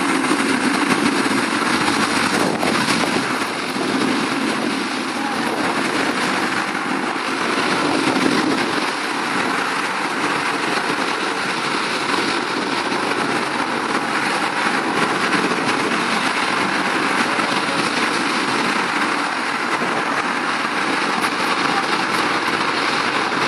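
A Zubr-class military hovercraft's gas turbines, ducted propellers and lift fans running steadily. It is a loud, continuous, even rush of noise with no breaks.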